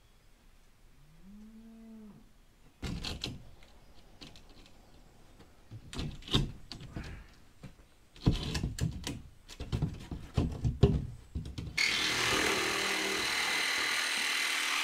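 A cow moos once, faintly, about a second in. Then a wooden wall panel is handled and set against the framing, with irregular knocks and scraping, and for the last few seconds a hand-held power tool runs steadily, cutting the sheet; this is the loudest sound.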